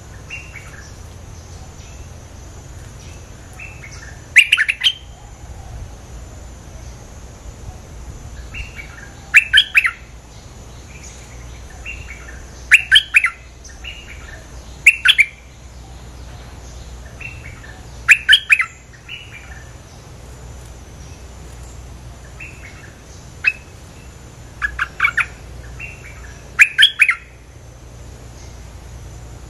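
Merbah lekir bulbul calling as a trapping lure: short phrases of a few quick bubbly notes, repeated every few seconds.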